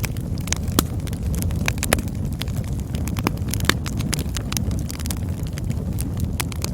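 Campfire burning with a steady low roar and many irregular crackles and pops, a few sharper snaps standing out.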